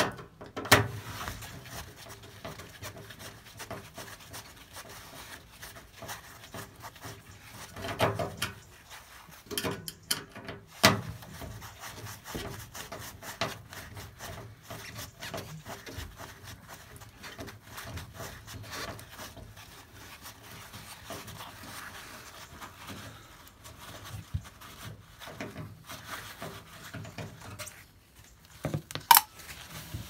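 A screwdriver undoing the screws at the bottom of a Bosch/Siemens washing machine's metal front panel: faint scraping and ticking of the tool in the screw heads, with a few sharp knocks, the loudest about a second in and a sharp click near the end.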